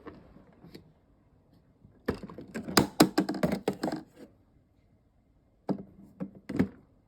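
Small hard toy pieces clicking and knocking together: a quick flurry of sharp clicks for about two seconds, then a few separate knocks near the end.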